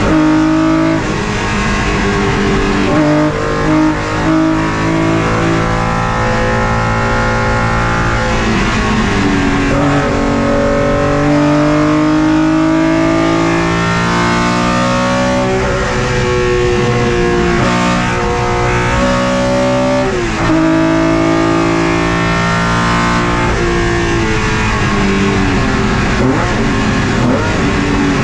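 BMW M1's straight-six racing engine heard from inside the cockpit at speed, its pitch climbing again and again and dropping sharply at each of several upshifts.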